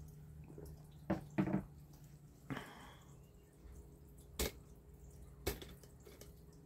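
Rainwater dripping: a handful of sharp, scattered drops and taps a second or so apart, over a faint steady low hum.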